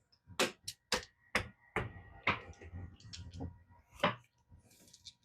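Casino chips being set down and stacked on a craps table as bets are placed: a string of separate sharp clacks, about eight in four seconds.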